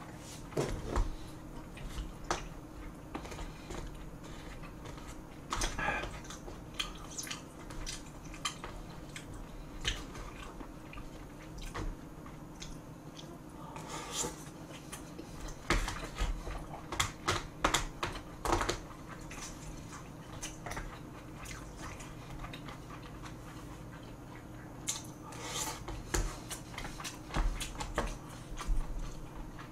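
Close-miked chewing and biting of a person eating dumplings and bacon kimchi fried rice: irregular wet mouth smacks and clicks, busiest around the middle and near the end.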